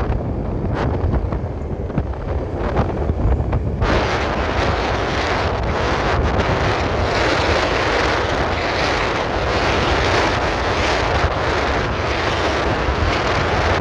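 Wind buffeting a phone microphone on a moving scooter, a steady low rumble with traffic noise; about four seconds in, a louder, fuller rushing noise sets in and holds.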